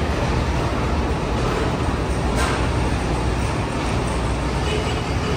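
Steady low rumble of idling trucks and loading-dock machinery, with a faint knock about two and a half seconds in.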